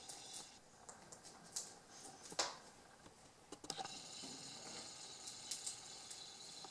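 Irregular light clicks and ticks of a young rabbit drinking at a cage's drip water bottle, the metal spout clicking as it licks, with one sharper click about two and a half seconds in.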